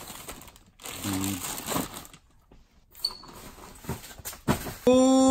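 Plastic bags and packaging crinkling and rustling as hands rummage through a reusable tote bag of boxed-up items. Near the end a voice breaks in with a long, loud 'ooh' that falls in pitch.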